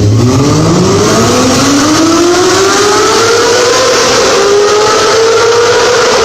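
Honda CBR250RR's 250 cc inline-four engine revving toward its 19,000 rpm redline: a loud, high-pitched scream that climbs steadily for about four seconds, then holds and eases off slightly near the end.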